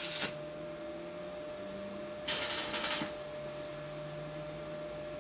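Stick-welding arc from a 2.5 mm general-purpose rod at about 78 amps, crackling in short bursts while tacking thin exhaust pipe: the tail of one tack at the very start, then a second tack a little over two seconds in that lasts under a second.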